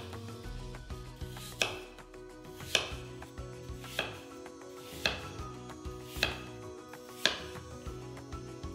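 Kitchen knife slicing through peeled apple, each cut ending in a sharp knock of the blade on a wooden cutting board, about once a second. Soft background music plays underneath.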